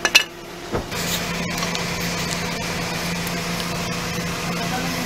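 A sharp clink of metal hand tools near the start, then a steady machine hum with a low drone sets in about a second in and holds.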